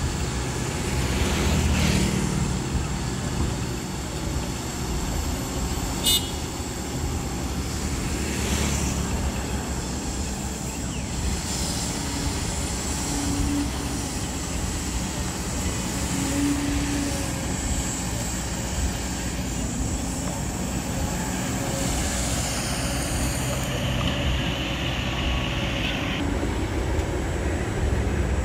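Kobelco SK200 hydraulic excavator's diesel engine running steadily under load while digging mud, with a single sharp knock about six seconds in.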